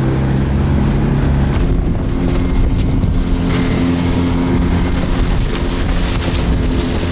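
Boat's outboard motor running under way, its note shifting a couple of times, with wind and water hiss.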